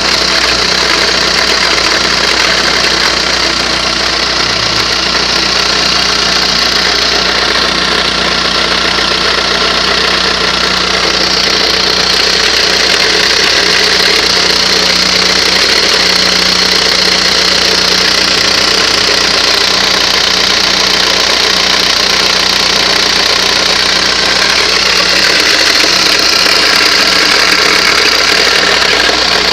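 Škoda Octavia II engine idling steadily. It makes an odd running noise that the owner treats as a suspected fault.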